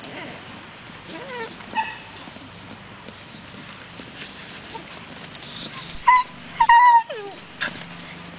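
Dogs play-wrestling, one giving short, high-pitched squeals and whines: a few brief squeals, then a louder run of squeals past the middle ending in a short falling whine.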